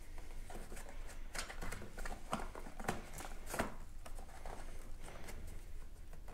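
A rubber wiring grommet being pushed and worked into place by hand on a scooter's plastic fairing: irregular small clicks and rustles of rubber, wire and plastic.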